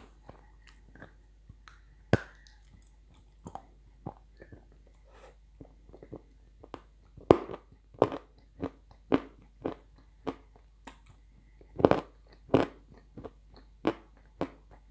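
Close-up crunching and chewing of dry edible clay chunks. The crunches come sparsely at first, then louder and about twice a second from about seven seconds in.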